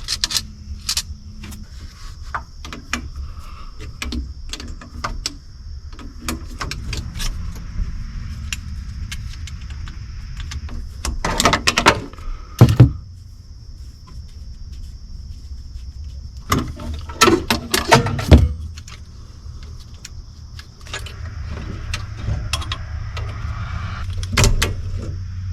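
Hand tools and metal parts clinking and clanking while a carburetor is being taken off, with two spells of louder clatter about halfway through. A faint steady high whine sits behind it.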